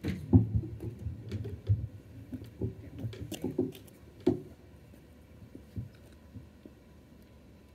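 Handling sounds from a wooden lectern being set in place and papers laid on it: scattered knocks, clicks and dull bumps, the loudest about half a second in and again about four seconds in, then faint with a few small clicks.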